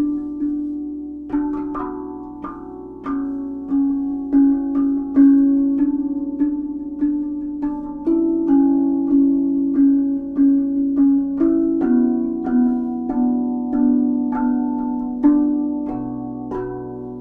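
RAV steel tongue drum played with the hands: single notes struck about twice a second, each ringing on and overlapping the next in a slow, melodic line.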